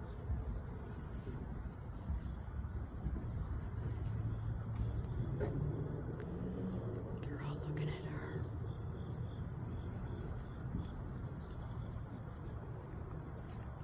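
Steady high-pitched trilling of an insect chorus, with a low rumble underneath.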